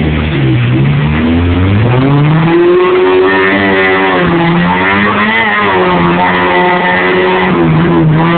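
Suzuki 4x4 off-roader's engine revving hard as it fights through a deep mud hole with its wheels spinning and throwing mud. The revs climb steeply about two seconds in, then stay high, surging up and down.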